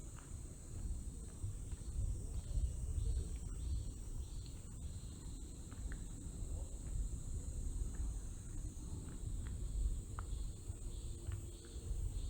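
Insects chirring steadily in a high, continuous drone, with a pulsing chirp a little lower in pitch, over a constant low rumble.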